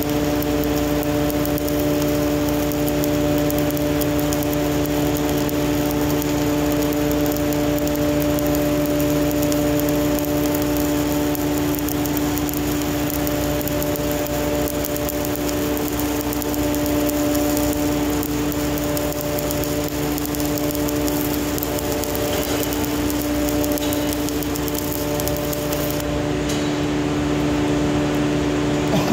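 Stick-welding arc with a 1/8-inch 308 stainless electrode at about 127 amps, hissing and crackling steadily during a vertical-up pass, over a steady machine drone. The arc stops about three seconds before the end, leaving the drone.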